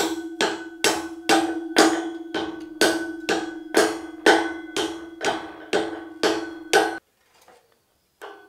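A hammer tapping on a steel I-beam about twice a second, the steel ringing on between strikes, as the beam is adjusted a few millimetres to bring it level. The tapping stops about seven seconds in, and one more tap comes near the end.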